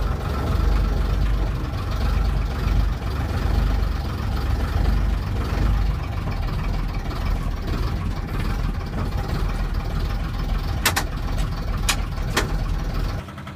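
AEC Mammoth Major lorry's engine running steadily, heard from inside the cab, with three sharp clicks about eleven to twelve and a half seconds in.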